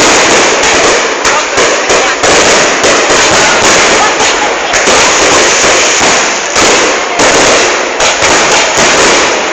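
Aerial fireworks display bursting in rapid, overlapping succession, loud and near-continuous, with a fresh bang every half second to a second.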